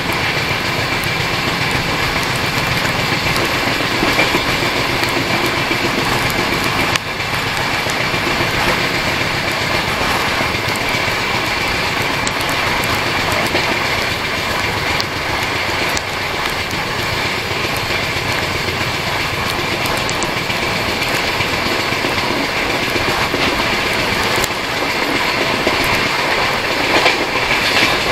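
Jharkhand Swarn Jayanti Express running at speed, heard from beside a coach: a steady rush of wheels on rails and passing air, with a steady high whine running through it.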